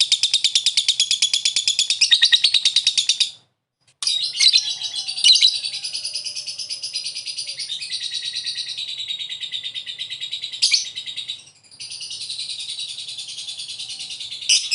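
Lovebird singing the 'ngekek' song: a long, fast, shrill chattering trill of rapid repeated notes. It breaks off briefly about three and a half seconds in and dips again for a moment near the end, then carries on.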